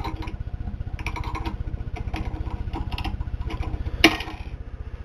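Small metal clicks and scrapes of a pick and snap ring pliers on the clutch piston snap ring of a Ford C4 automatic transmission, then a sharp metallic snap about four seconds in as the snap ring pops off. A steady low pulsing rumble runs underneath throughout.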